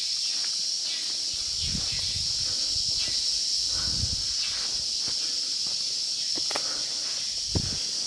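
Steady high-pitched drone of tropical rainforest insects, with a few low thuds of footsteps and a sharp tap near the end.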